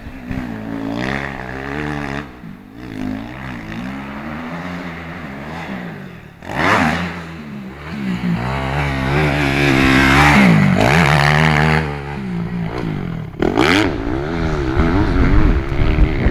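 250cc four-stroke motocross bikes running on the track, engine notes rising and falling as riders open and close the throttle. The engines get loudest as bikes pass close, about six and ten seconds in.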